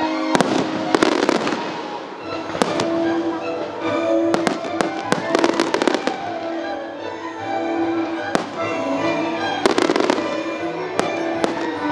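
Aerial fireworks bursting with sharp bangs every second or so, some in quick crackling clusters, over music playing with the show.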